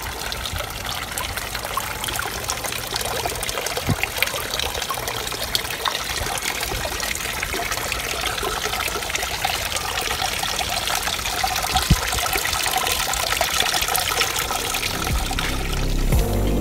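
Water trickling and splashing steadily from a spout into a wooden half-barrel fountain, heard close up.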